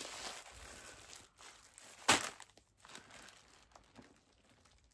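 Plastic bags crinkling and rustling as a packet is handled and a plastic carrier bag is rummaged through, with one sharp, louder crackle about two seconds in and smaller crinkles after it.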